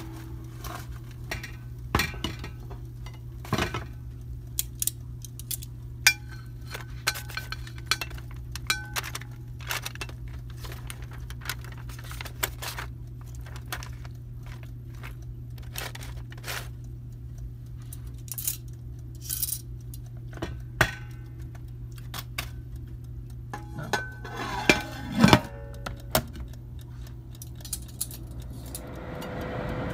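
A metal fork clinking and tapping against a foil-lined cooking basket as bacon strips are moved and laid out, scattered sharp clicks with a louder flurry near the end, over a steady low hum.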